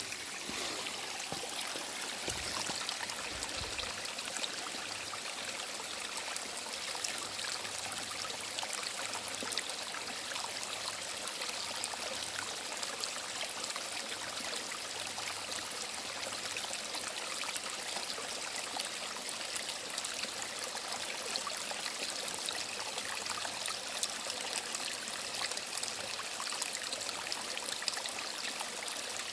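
Small mountain stream running and trickling over rocks, a steady rush of water with small splashes and gurgles.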